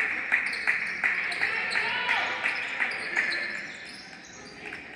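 A basketball dribbled on a hardwood gym floor, about three bounces a second, over the chatter of voices in the gym; the dribbling stops about three seconds in.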